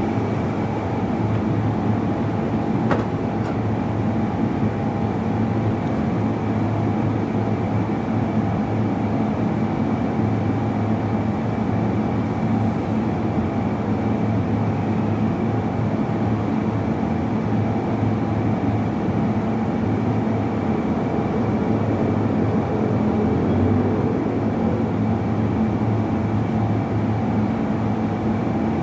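Steady machine drone with a low hum and a thin high whine, unchanging in level.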